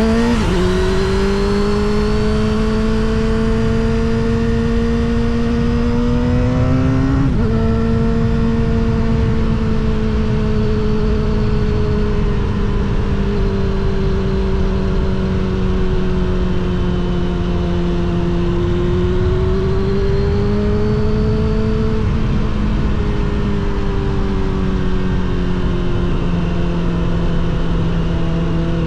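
Suzuki GSX-R750 SRAD inline-four with a Yoshimura R77 exhaust running at steady cruising revs, its pitch drifting gently. The note steps abruptly, as in a gear change, about seven seconds in and again about twenty-two seconds in. Wind rush lies under it.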